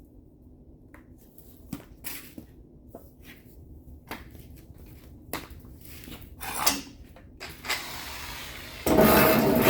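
Scattered knocks and clicks of tools and metal being handled, then about 9 s in an angle grinder starts up loud and keeps running.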